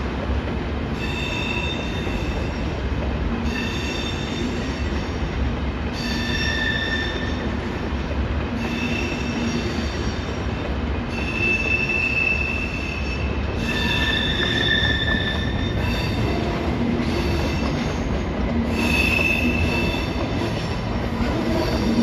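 ICE high-speed trains rolling slowly over curved track with their wheels squealing: a high squeal that comes and goes about every two seconds, over a steady low rumble of the train running past.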